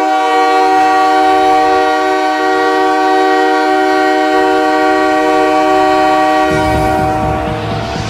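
Montreal Canadiens' goal horn: a loud multi-note chord horn held steady for about six and a half seconds. Near the end the goal song's music comes in underneath with a low beat, and the horn fades.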